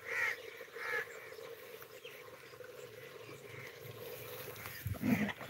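Short bird calls, two louder ones in the first second and a few fainter ones after, over a faint steady hum.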